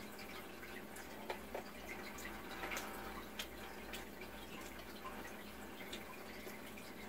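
Quiet chewing close to the microphone: faint, scattered wet mouth clicks and smacks, several a second at most.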